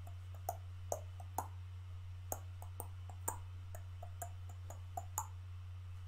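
Faint light clicks, about two a second and unevenly spaced, over a steady low hum.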